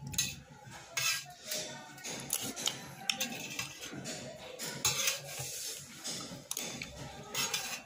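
A spoon scraping and clinking against a large metal plate in short, irregular clicks while food is scooped up to eat.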